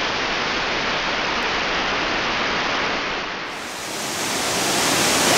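Waterfall's water rushing in a steady roar of noise; it dips briefly about three and a half seconds in and comes back brighter.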